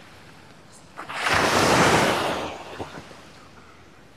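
A sea wave breaking and washing up the beach: a rush of surf that swells in about a second in and fades away over about two seconds.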